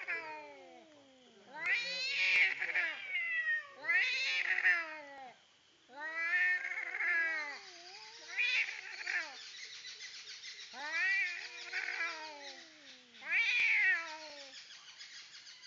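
Two domestic cats yowling at each other in a fight standoff: about six long, wavering caterwauls that rise and fall in pitch, one after another with short gaps between.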